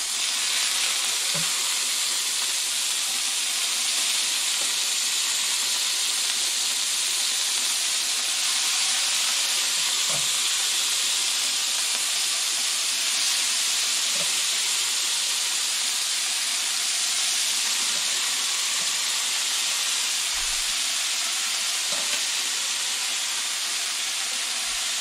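Chunks of marinated beef sizzling in hot oil in a frying pan: a steady, even frying hiss, with a few faint knocks.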